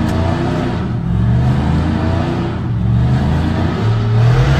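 Pickup truck engine held at high revs through a smoky burnout, the pitch shifting up and down with the throttle. It is a "one tire fire": only one rear tyre is spinning.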